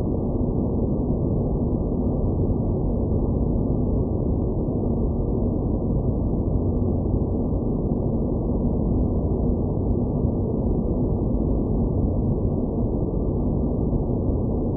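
Synthesized space-planet ambience: a steady, muffled noise with no high end and a faint steady hum inside it.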